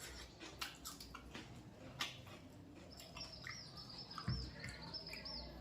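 Soft eating noises, scattered wet clicks and smacks of chewing, with a small bird chirping a quick run of high repeated notes starting about halfway through.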